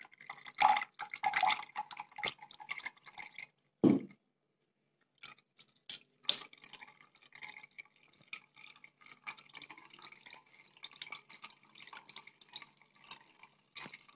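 Blended watermelon juice poured from a steel mixer jar through a plastic tea strainer into a glass, then a plastic spoon scraping and pressing the pulp in the strainer while the juice drips through. A single heavy thump about four seconds in, between the pouring and the scraping.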